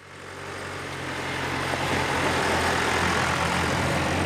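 Farm tractor engine running steadily while pulling a loaded hay wagon, growing louder as it approaches and passes.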